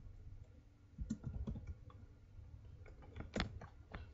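Computer keyboard typing: scattered light key clicks, in a cluster about a second in and another near the end.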